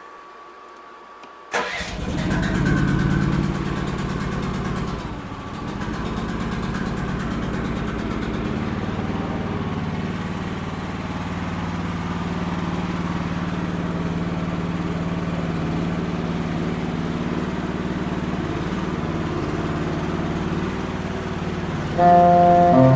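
The 14 hp Briggs & Stratton engine of a Kymron micro mini excavator cold-started on choke: it catches about a second and a half in, runs louder for a couple of seconds, dips briefly, then settles into a steady run.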